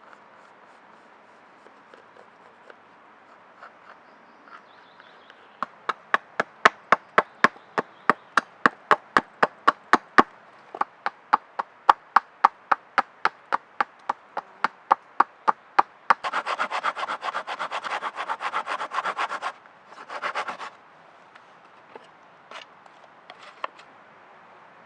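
A hand tool working a piece of hardwood: a steady run of scraping strokes, about three a second, then a few seconds of fast, continuous rubbing and a short last burst.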